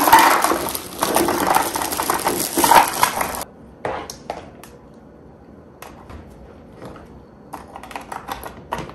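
Plastic bag crinkling as a bag of round cookies is tipped into a clear plastic storage canister, lasting about three and a half seconds. Then scattered light clicks and taps as the canister's push-button lid is handled and fitted.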